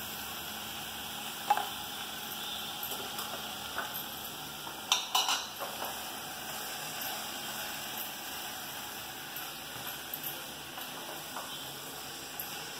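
Onion and spice mixture sizzling gently in a pot while boiled jackfruit seeds are scraped in from a glass bowl with a wooden spatula and stirred. The spatula knocks against the bowl and pot a few times, loudest about five seconds in.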